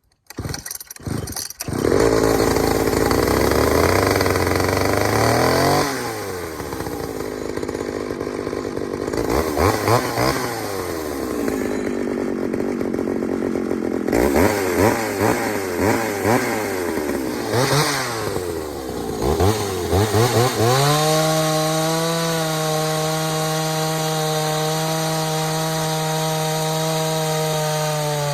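Pioneer 3270 two-stroke chainsaw pull-started, catching after a few short pulls, then run loud for a few seconds and revved up and down repeatedly before settling to a steady idle about 20 seconds in. The owner takes its running for a lean condition, the engine starving for fuel.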